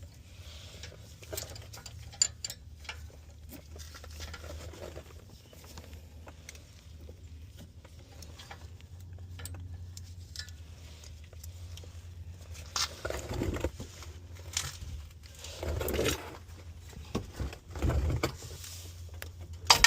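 Hand tools clicking and clinking on metal as a wrench works a seized downstream oxygen sensor loose from the exhaust, over a steady low hum. The knocks and scrapes get louder in the last third.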